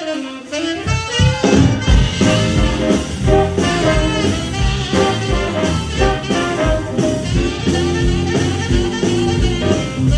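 Live jump-blues band playing, with the horns (trumpet, saxophone and trombone) out front over piano, guitars, bass and drums. The bass and drums drop out at the very start under a rising glide, and the full band comes back in about a second and a half in.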